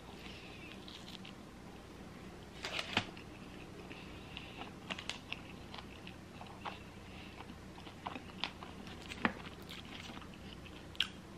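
Close-up mouth sounds of a person chewing a bite of combination pizza: soft, scattered wet clicks and small crunches over a quiet background, the loudest about three seconds in.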